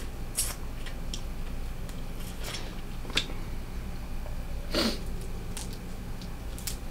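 Steamed blue crab being picked apart by hand while eating: scattered small cracks and clicks of shell, with a louder one about five seconds in.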